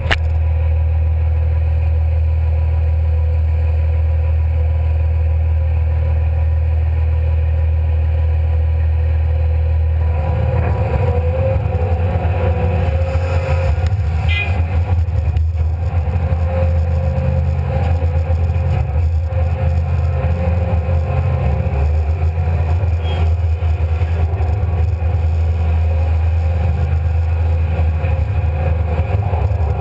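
Komatsu PC300 hydraulic excavator's diesel engine running. It is steady for about the first ten seconds, then runs harder and less evenly as the machine digs and swings its loaded bucket over to the dump truck.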